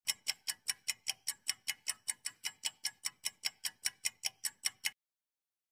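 Quiz-timer clock-ticking sound effect: rapid, even ticks about five a second that stop suddenly near the end.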